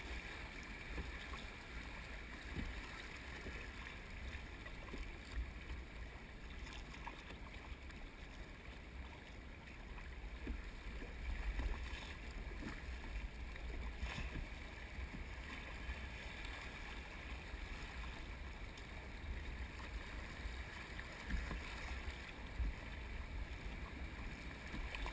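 River water rushing and rippling around a plastic kayak as it runs down shallow gravel riffles, a steady wash with a few light splashes. Wind rumbles on the microphone underneath.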